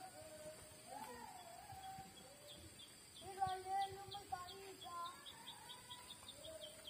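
Faint outdoor ambience: a bird chirping in a quick run of short, high chirps, about four a second, over lower drawn-out calls.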